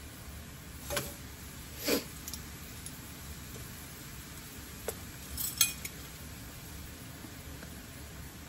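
A few sharp clicks and clinks of plastic measuring spoons, the salt canister and the wooden spoon against the cast-iron skillet, the loudest cluster a little past halfway. Under them is a faint steady sizzle of onion, bell pepper and celery sautéing in the skillet.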